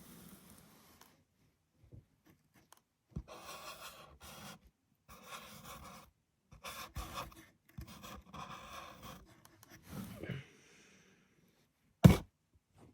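A board marker squeaking and scratching across a board in a series of strokes while drawing a heart and writing the word 'love'. One sharp knock comes near the end.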